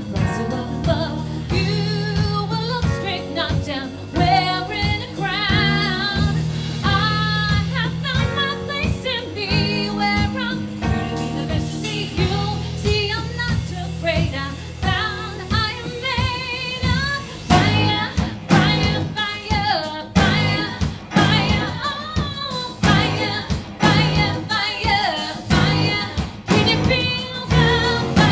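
Live band playing a song: a woman's lead vocal over keyboards, bass guitar and drums. A rising sweep climbs through the middle, and the drums hit harder from about two-thirds of the way in.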